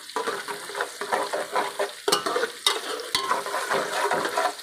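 Sliced onions frying and sizzling in oil in a metal pot while a metal spoon stirs them, scraping and clicking sharply against the pot a few times.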